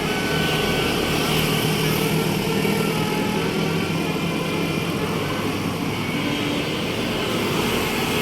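Steady vehicle engine hum with road noise, typical of a large tour bus running close by; no telolet horn melody stands out.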